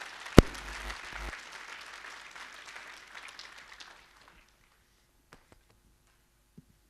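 Audience applauding at the end of a talk, dying away about four seconds in, with one sharp loud thump shortly after it starts. A few faint clicks follow.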